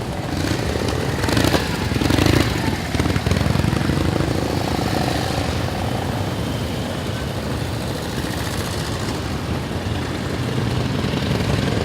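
Antique motorcycle engines running, with a louder stretch about two seconds in.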